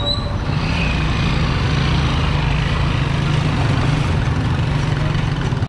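Steady wind rumble on a helmet-mounted action camera while riding a bicycle through traffic, mixed with the small engines of motorcycle sidecar tricycles running just ahead.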